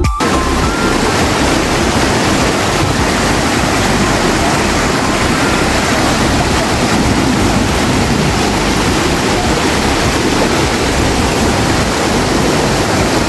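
Brown floodwater rushing and churning over rocks down a small stream swollen by heavy rain, a loud steady rush of water.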